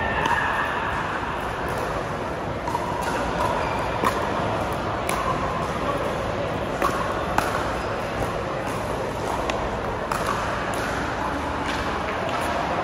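Pickleball rally: paddles striking a hard plastic pickleball, a handful of sharp pops spaced irregularly about a second or more apart, over a steady background of voices and hall noise.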